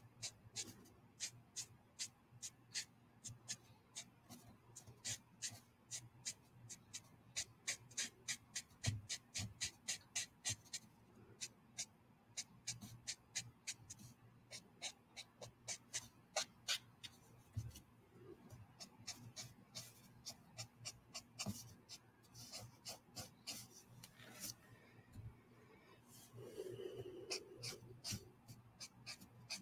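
Copic alcohol marker scratching across drawing paper in quick short colouring strokes, about three a second at the busiest stretch, with pauses between runs.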